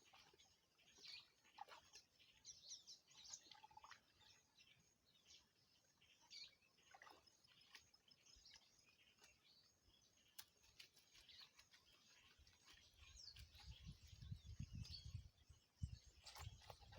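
Faint birds chirping: scattered short, high chirps and whistles. Low rumbling comes in during the last few seconds.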